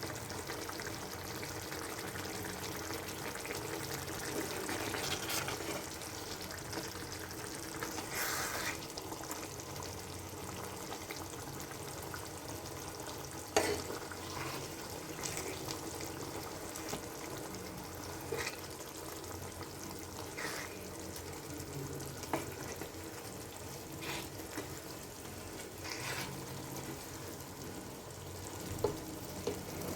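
Quail pepper masala gravy cooking in a pan, a steady frying hiss, with a sharp knock of a utensil against the pan now and then.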